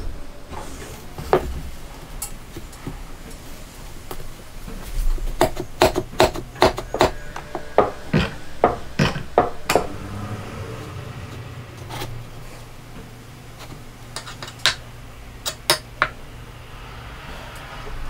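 Irregular sharp clicks and light knocks of hands working on a plywood jig with metal fittings. They come in a quick cluster from about five to ten seconds in, with a few single knocks later, over a faint low hum.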